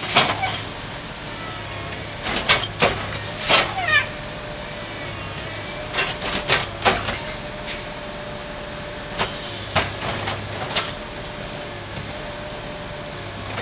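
Railroad tie-replacement machinery working on the track: an engine runs under repeated sharp metallic clanks and bangs, loosely grouped in clusters. There is a brief falling squeal about three and a half seconds in, and a steady whine from about four seconds in.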